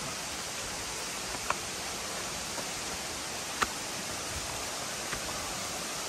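Steady rushing of water from a forest waterfall and its stream, an even hiss with no let-up. A few short sharp clicks stand out over it.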